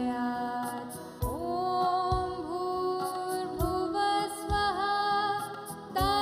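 A song sung with long, held notes that glide between pitches, over a low drum beat about once a second.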